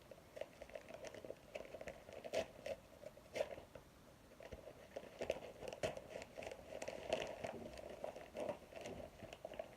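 Parcel packaging being opened by hand: faint, irregular crinkling, crackling and tearing with scattered small clicks.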